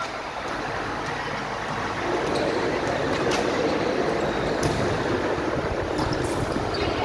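Spectators' voices echoing in a gymnasium during a volleyball rally, a steady din that grows louder about two seconds in, with a few sharp knocks over it.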